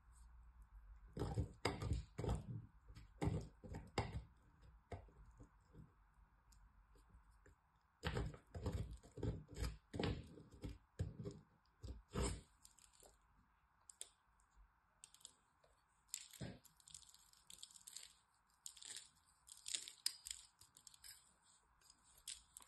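A bar of soap scraped against a small handheld metal grater, shaving off flakes. It comes in two runs of quick scraping strokes, then lighter, finer scraping over the last several seconds.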